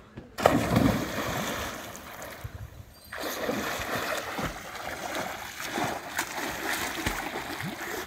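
A person dives headfirst into a canal with a loud splash about half a second in, then swims with steady splashing strokes and kicks. The splashing drops away briefly about two and a half seconds in, then the strokes go on.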